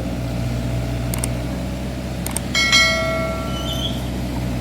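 Excavator running with a steady low hum. A few light knocks are followed, about two and a half seconds in, by a sharp metallic clang that rings briefly.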